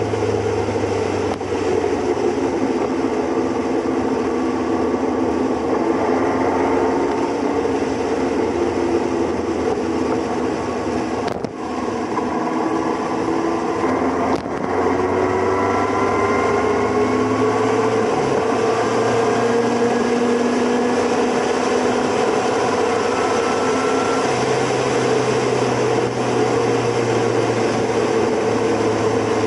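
Motorcycle engine running under way, heard from on board, its pitch slowly rising and falling with the throttle over a steady rush of road and wind noise.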